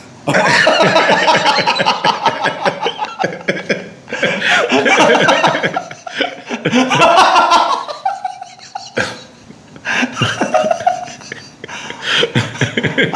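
Two men laughing hard, in long bursts of laughter broken by a couple of short pauses.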